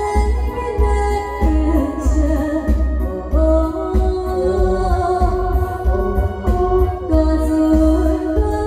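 A woman singing live into a handheld microphone through the stage PA, holding long melodic notes over backing music with a steady, pulsing bass beat.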